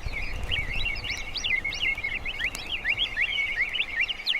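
Several small birds chirping and twittering without a break, in quick rising and falling notes.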